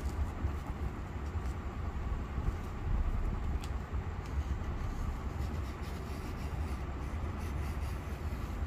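Fingers pressing and rubbing loose coloured sand into the sticky adhesive of a sand-art sheet, a soft scratchy rubbing with a few faint ticks of grains, over a steady low rumble.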